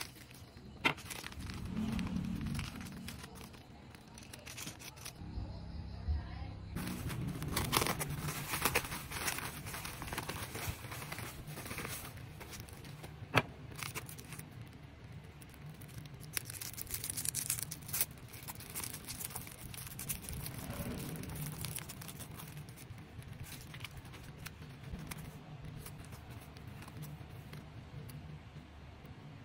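Cellophane and plastic packaging crinkling and rustling as small packets of stickers and craft supplies are unwrapped and handled, with a few sharp clicks.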